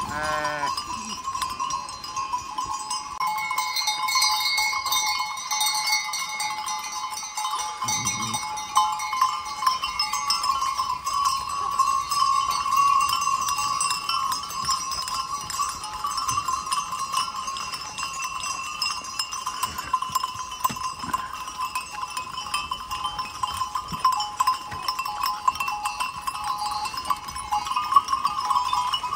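Many sheep bells clanking and ringing without a break as a flock of sheep walks past, with a sheep bleating near the start.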